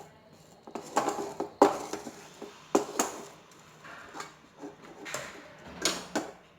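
A spatula scraping and knocking against a kadhai, stirring khoya as it roasts on a low flame, in irregular strokes with a few louder knocks.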